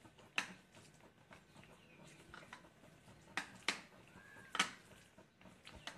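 Hands squishing and kneading raw chicken pieces coated in a wet flour-and-vinegar marinade in a plastic bowl. A few sharp wet smacks stand out, the loudest a little past halfway.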